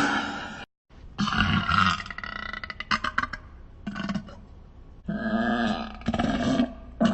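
Repeated burping: a series of pitched belches of varying length with short pauses between, the longest drawn out for over a second near the end.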